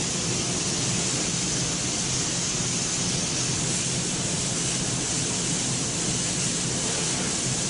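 Industrial filter-changing machine running with a steady, even hiss over a low hum.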